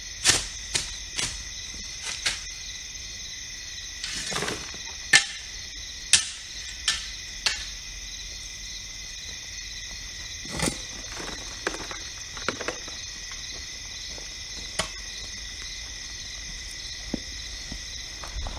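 A steady chorus of crickets, with irregular sharp scrapes and clatters of a steel shovel working gravel, frequent in the first several seconds and sparser later.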